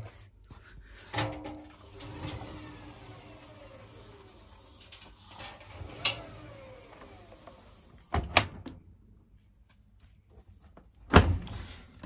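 Front-loading washing machine drum spun by hand, whirring as it coasts and slowing down, its pitch falling over several seconds. A few knocks and clicks follow near the end.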